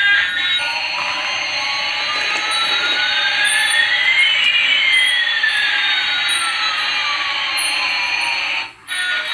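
Electronic jet-engine sound effect: a steady hiss with one tone gliding up and another gliding down, crossing about halfway, then cutting off suddenly near the end.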